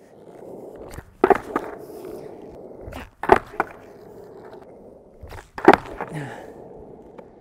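Freestyle skateboard's wheels rolling steadily on a concrete deck. Three sets of sharp clacks come about two seconds apart, as the board is kicked into a flip and landed on.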